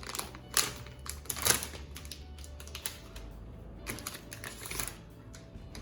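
Irregular taps, clicks and rustles of a phone box and its packaging being handled and opened, the sharpest click about a second and a half in.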